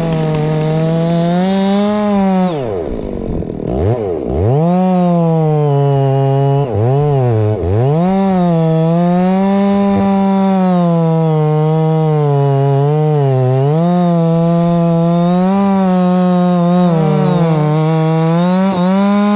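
Two-stroke chainsaw running at full throttle, cutting through a thick standing tree trunk. Its engine pitch sags several times as the chain bogs down in the cut, then picks back up.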